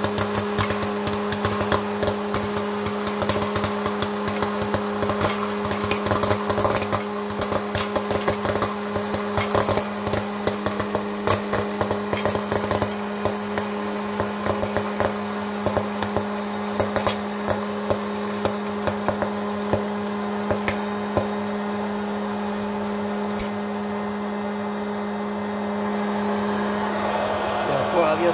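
Hot-air popcorn machine running: its hot-air fan motor hums steadily while kernels pop in quick, irregular cracks and are blown out of the chute. The popping thins out to occasional cracks after about twenty seconds as the batch finishes.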